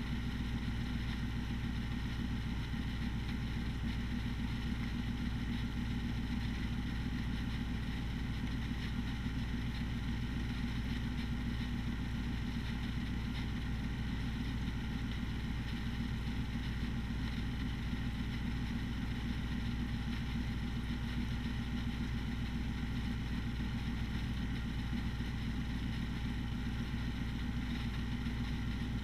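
A steady mechanical hum, like a running engine or motor, made of several steady tones that do not change.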